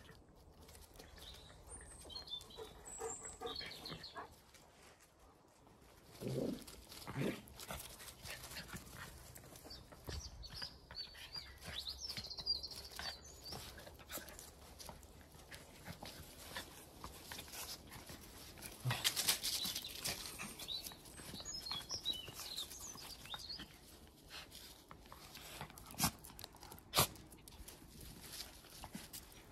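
Two small dogs play-wrestling: scuffling and rustling on the grass, with brief high squeaks scattered through, and two sharp knocks near the end.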